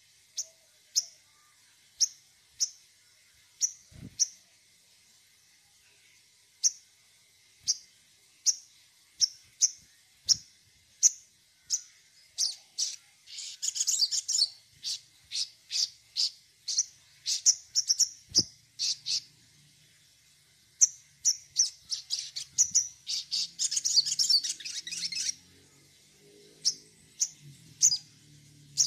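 Caged sogon songbird giving short, sharp, high chirps, at first about one a second, quickening about twelve seconds in and breaking twice into bursts of rapid chattering.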